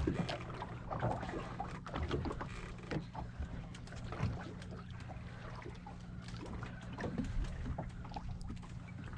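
Open boat drifting at sea: a steady low hum runs underneath, with scattered small knocks and rustles on board.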